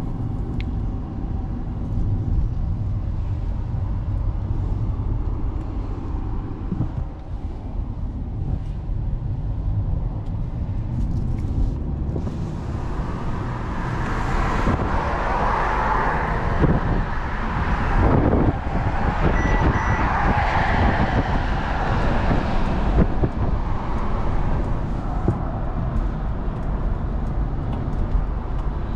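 Inside the cabin of a moving 2022 Mercedes-Benz C-Class with its 2.0-litre four-cylinder: steady low road and engine hum. About halfway through, a louder rush of road and traffic noise swells up for several seconds with two peaks as a bus runs alongside, then eases back.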